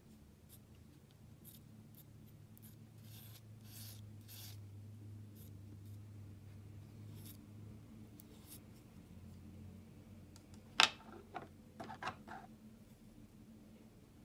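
Palette knife scraping and smearing thick paint across a smooth surface in a series of soft strokes. About three-quarters through comes a sharp click, the loudest sound, followed by a few smaller clicks.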